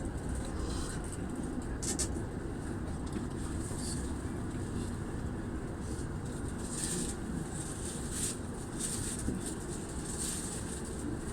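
Steady low rumble of a commuter electric train running, heard from inside the carriage, with a faint click about two seconds in and some brief hissing later.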